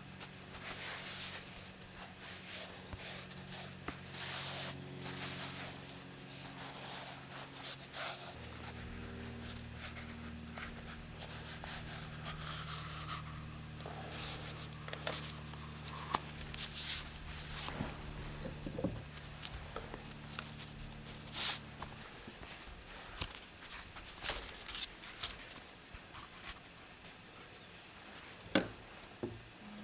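Repeated short rubbing or scraping strokes, over soft background music of held chords that change about a third of the way through and stop about two-thirds through.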